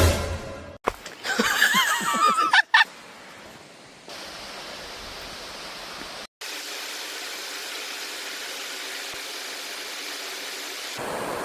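A loud warbling, pitched call in short chopped pieces for the first few seconds, then a steady rushing of falling or running water.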